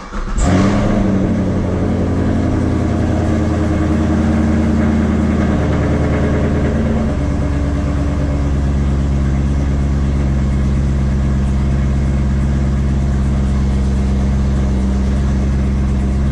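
A 6th-gen Chevrolet Camaro's 6.2-litre LT1 V8 is cranked and fires up, flaring briefly on the start and then idling steadily, heard from inside the cabin. The idle drops a step about seven seconds in as the fast start-up idle settles.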